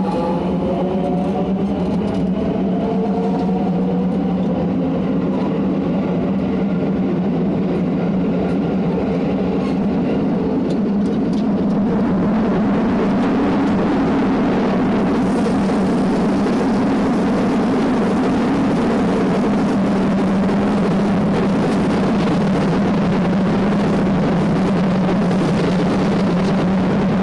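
Running sound of a JR West 207 series electric train, set T17, whose VVVF inverter is known for an unusual noise. Several pitched tones rise together as it accelerates early on, then level off into a steady hum under rolling and wheel noise, which grows much louder about 12 seconds in.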